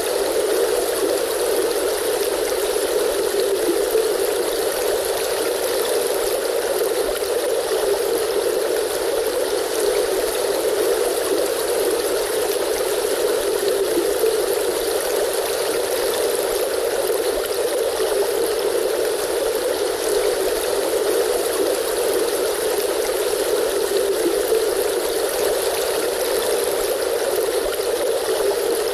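A river stream flowing: a steady, even rush of water with no breaks or changes.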